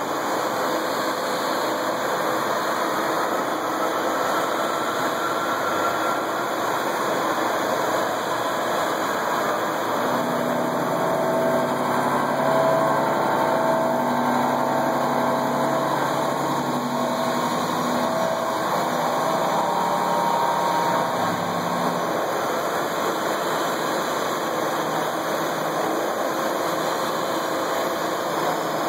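Machine tool rough-milling the bore of crankshaft bearing half-shells with an indexable-insert milling cutter: steady spindle and cutting noise, with a humming tone that joins about ten seconds in and fades out after about twenty-two seconds.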